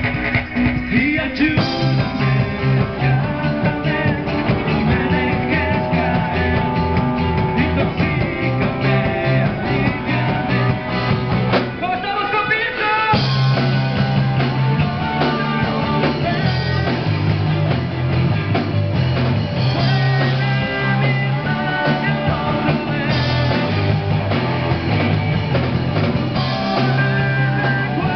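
Live amplified rock band: two electric guitars, bass guitar and drum kit, with a man singing. About twelve seconds in the bass drops out briefly, then the full band comes back in.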